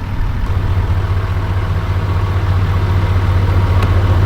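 Truck engine idling steadily with a deep, even hum, running as the donor vehicle in a jump-start of a truck with a dead battery.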